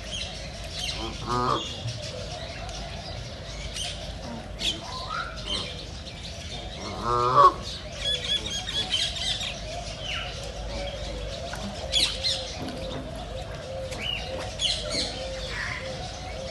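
Wild ducks quacking, with two short rasping calls, the louder one about seven seconds in. Small birds chirp throughout.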